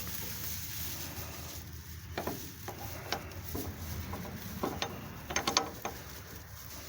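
Metal clicks and clinks as a tow strap hook is worked onto an old riding mower's frame: a few single clinks, then a quick cluster of them near the end.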